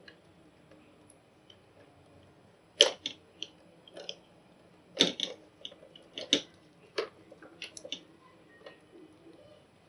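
Irregular sharp clicks and taps of hand tools and wire being handled while wiring a sub-meter and circuit breaker terminals, in small groups from about three seconds in to near the end.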